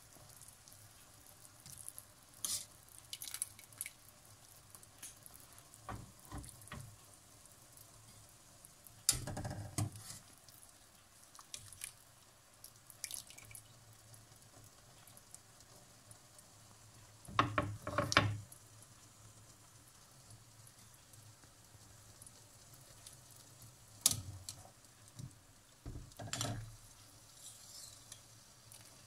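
Broth dripping and splashing as boiled meat is lifted out of a stainless steel stock pot with a ladle and a wire skimmer, with scattered knocks of the utensils against the pot. The longest splashes come about nine seconds in and again near the middle.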